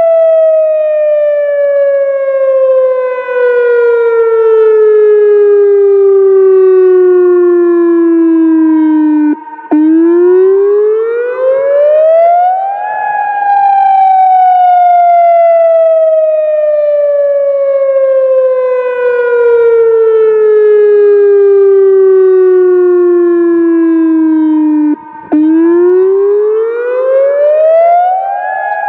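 ATI HPSS-32 electronic outdoor warning siren sounding a wail. The tone falls slowly for about nine seconds, drops out for an instant at its lowest, then rises again over about three seconds. This happens twice.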